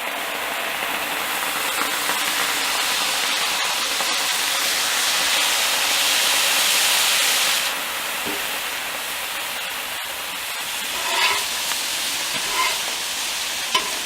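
Chicken stock steaming and sizzling on the hot steel top of a Blackstone griddle around vegetables: a steady loud hiss that swells, then drops off sharply about eight seconds in.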